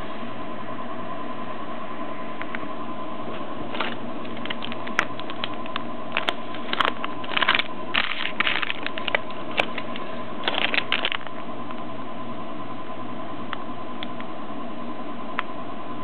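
Clear plastic parts bag crinkling and crackling as fingers handle it, in a run of sharp crackles from about a quarter of the way in until past the middle. Underneath is a steady hiss with a thin high whine.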